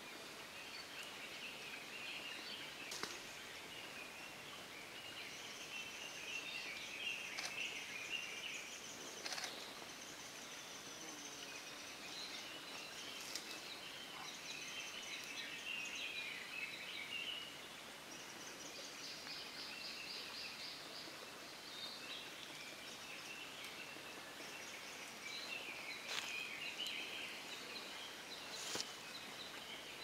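Japanese green woodpecker chiselling out its nest hole in a tree trunk: a few scattered sharp knocks, over steady chirping and trilling of songbirds.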